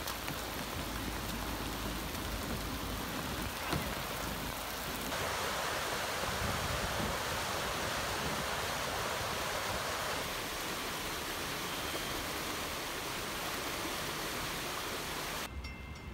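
Steady hiss of heavy rain or rushing flood water, shifting in level at edits about five and ten seconds in. Near the end it cuts to a quieter low hum with faint steady tones.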